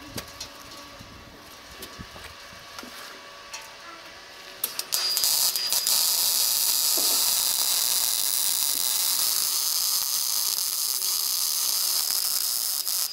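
Electric arc welding, running a bead on the steel air tank: after a few short clicks about five seconds in, a steady, loud crackling hiss sets in and holds.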